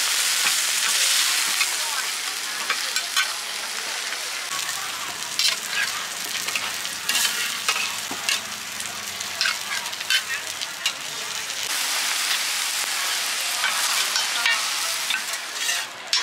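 Mussel omelette frying in oil on a hot flat pan, with a steady sizzle and frequent short clicks and scrapes of metal spatulas against the pan. The sizzle is louder at the start and again late on.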